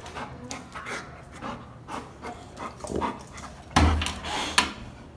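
A dog panting and snuffling in short quick bursts, with a louder burst about four seconds in and a sharp click just after.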